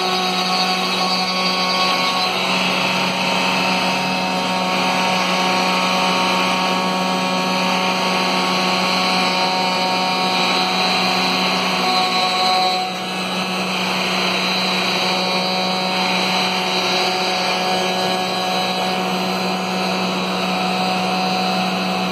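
Router spindle of a Maslow CNC running steadily while its bit cuts a slot through plywood: a constant motor hum under a rough, wavering cutting noise. The sound dips briefly a little past halfway, then carries on as before.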